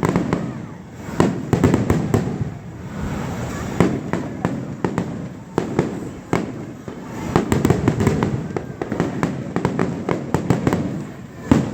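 Aerial fireworks display: a dense run of booms and sharp crackling bangs, many overlapping, with rumbling between bursts.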